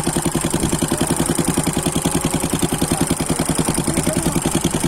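Small boat's engine running steadily under way, with an even, rapid pulse of about ten beats a second.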